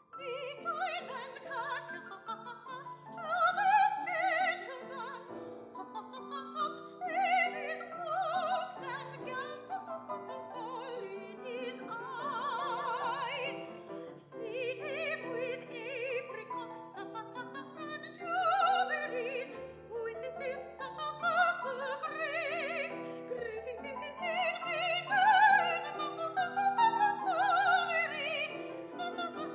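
Coloratura soprano singing an opera aria with piano accompaniment, in phrases of high, moving lines and wavering held notes.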